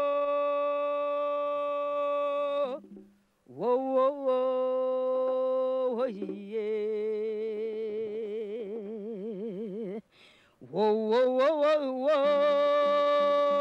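A woman singing solo with no accompaniment, in long held notes that swoop up into each phrase. The middle phrase has a wide vibrato, and she breaks off briefly for breath about three and ten seconds in.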